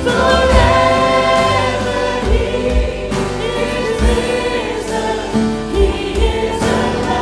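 Christian worship music: voices singing long held notes over sustained instruments, with a few low drum beats.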